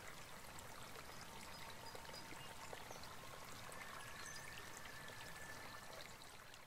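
Faint steady hiss of room tone and recording noise, with a faint thin tone in the second half.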